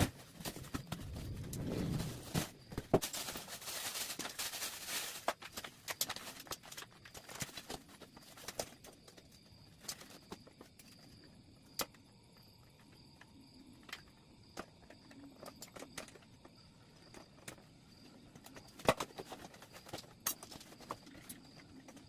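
Handling noise while unboxing: a few seconds of rustling, then scattered sharp clicks and knocks, with a faint steady high tone underneath.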